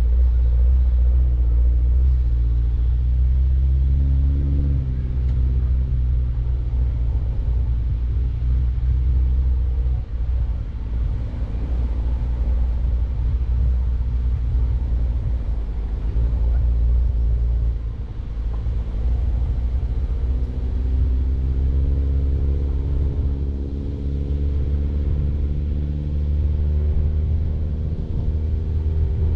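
Mini Cooper Countryman All4's engine running as the car drives, with a strong low rumble. The engine note rises about four seconds in, sinks into the rumble through the middle, and comes back steady in the last third.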